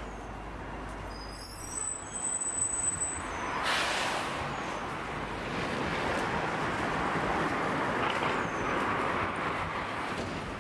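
Street traffic passing close by: a brief high squeal about two seconds in, then a steady rush of vehicle noise that swells at about four seconds and eases off near the end.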